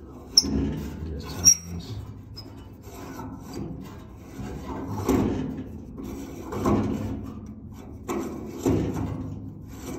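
Gas valve of a Dearborn gas heater being worked loose, metal parts rubbing and scraping. Two sharp clicks in the first second and a half, then several rubbing strokes about every one and a half to two seconds.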